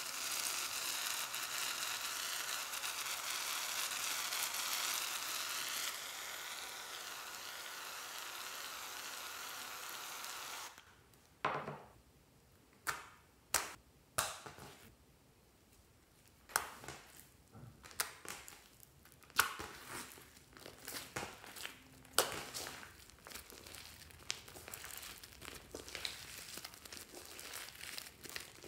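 An aerosol can spraying foam onto slime, a steady hiss that stops about ten seconds in. Then hands squeeze and knead the foam into the slime, making irregular sharp crackles and wet squishes, denser and fainter near the end.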